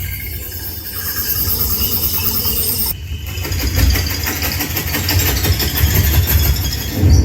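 Dolby Atmos test audio played at maximum volume through a Zebronics Juke Bar 9700 Pro soundbar and subwoofer: a dense, rain-like hiss over deep bass rumble, dipping briefly about three seconds in.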